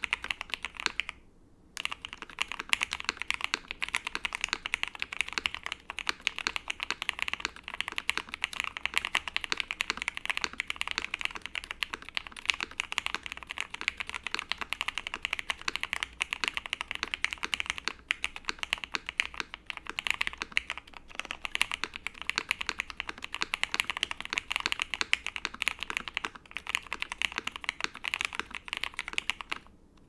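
Continuous fast typing on a custom mechanical keyboard, an OwLabs Jelly Epoch with broken-in Hyperglide MX Black linear switches lubed with Krytox 205g0 on a POM plate, with GMK keycaps. A dense stream of keystrokes, with a brief pause a little over a second in.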